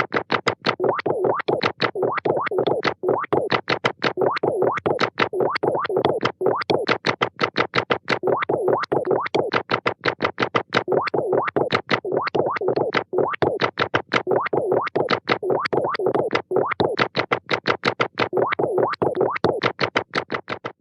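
A rapid, even string of short synthesized notes, several a second, each struck sharply and quickly fading, used as a cartoon sound effect; it cuts off abruptly near the end.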